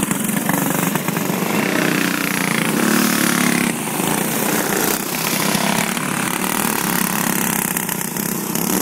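Several dirt-track racing karts' small engines running hard as the karts pass close by at speed, loud and continuous.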